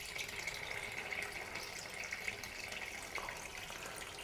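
Water running steadily out through the safety valve of a 300-litre electric water heater being drained, a faint even rush. Air let in at the hot-water outlet gives the stronger flow.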